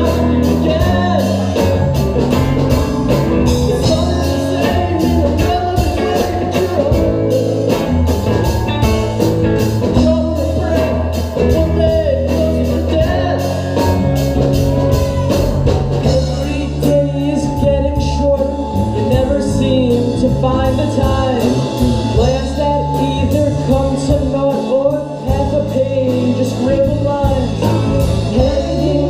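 Live rock band playing: electric guitar, bass and drums with a steady beat, with singing.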